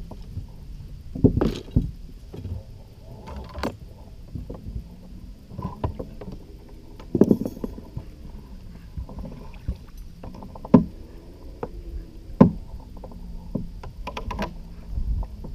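Irregular knocks and thumps against the side of a fishing boat, with water sloshing, as a netted musky thrashes in a landing net held at the gunwale.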